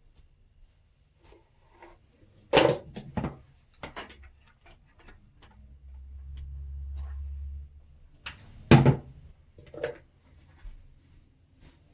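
A few sharp knocks and clicks from objects being handled, two of them louder than the rest, with a low rumble for a second or two in the middle.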